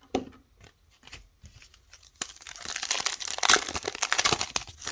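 Foil wrapper of a trading card pack crinkling and tearing as it is opened, a dense crackling run from about two seconds in until just before the end.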